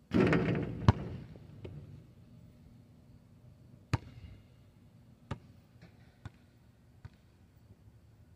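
Basketball striking the backboard and rim of a portable hoop: a loud rattling crash lasting about a second. Then the ball bounces on the asphalt: a sharp thud about four seconds in and three smaller ones, each closer to the last.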